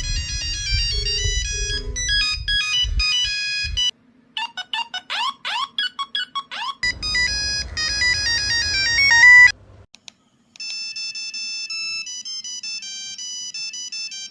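A run of old mobile phone ringtones, electronic melodies cut one after another. The tune changes every three to four seconds. After a brief drop-out near the end, a thinner, simpler beeping melody plays.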